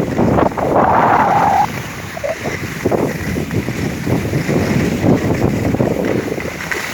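Wind buffeting the microphone of a skier's camera during a downhill run, over the rough, uneven scraping of skis on snow.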